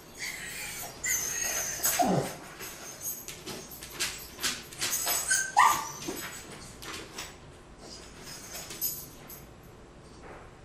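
Small dog whining and yipping, with two short cries, one falling about two seconds in and a higher one about five and a half seconds in, amid scraping and clattering as it pushes at an aluminum gutter-cover barricade; the noise dies down after about seven seconds.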